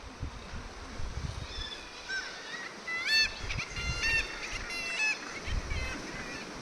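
Seabirds calling: a run of high calls that each rise and then hold, several birds overlapping, from about one and a half to six seconds in. A low gusty rumble runs beneath them.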